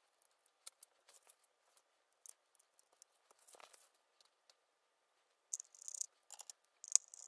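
Faint clicks and scrapes of small tablet parts being handled, then a precision screwdriver driving a tiny screw into the Surface Pro 4's internal metal frame. The clicks come faster and sharper over the last two seconds.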